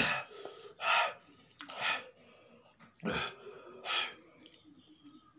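Sharp gasps and blown-out breaths through the open mouth from the burn of raw green chillies, about five loud breathy bursts roughly a second apart.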